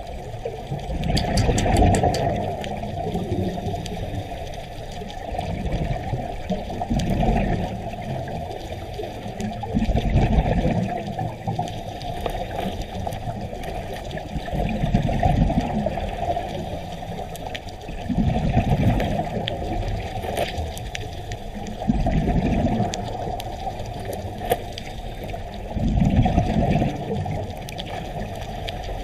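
Underwater sound of a scuba diver's breathing. The regulator's exhaled bubbles rumble up in a burst about every four seconds, seven times, over a steady rush of water.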